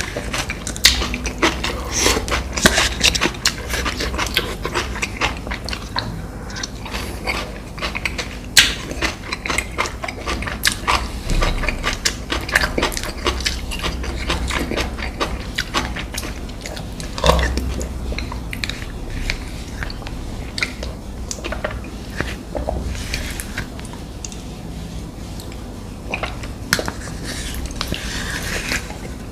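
Close-miked eating: biting into and chewing crunchy fast food, with many sharp, irregular crunches and wet mouth sounds. The crunching is busiest in the first half and thins out near the end.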